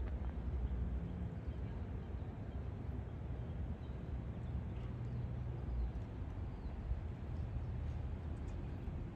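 Low, steady rumbling background noise with a few faint ticks.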